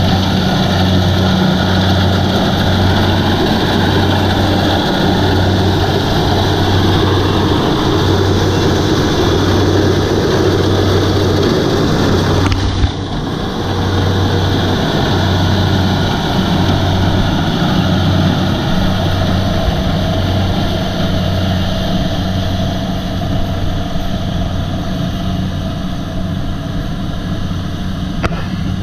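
Kubota DC-70 combine harvester's diesel engine running steadily with a low, pulsing throb, with a brief drop and jump in the sound about halfway through.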